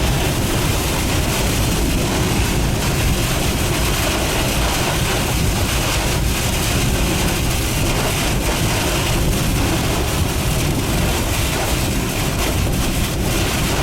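Steady, loud rushing noise of strong storm wind around a vehicle.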